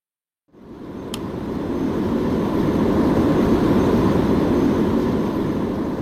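Air traffic control radio channel opening on a keyed transmission with no speech: a steady rush of open-microphone noise that starts abruptly about half a second in, with a single click about a second in, and cuts off at the end when the transmitter is released.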